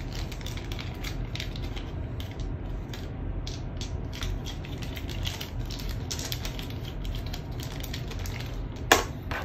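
Board game components being handled: rustling with scattered light clicks of small pieces, and one sharper knock near the end.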